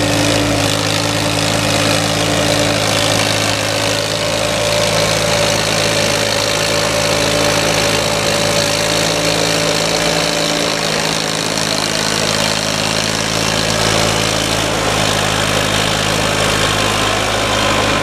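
Farmtrac 6050 4x4 tractor's diesel engine running at a steady pitch while pulling a loaded trolley.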